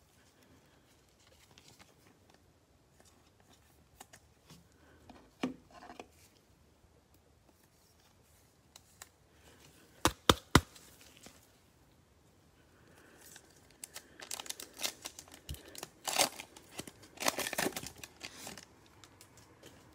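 The cellophane wrapper of a Panini Mosaic football cello pack crinkling and tearing as it is ripped open, in a dense run over the last several seconds. A few sharp clicks come about halfway through.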